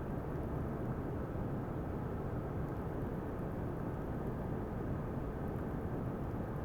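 Ultrasonic cleaning tank running: a steady, even noise, heaviest in the low range, that does not change.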